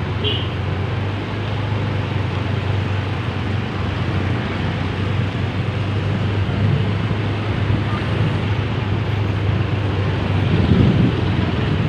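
Steady vehicle engine and road noise, a low drone that swells briefly near the end.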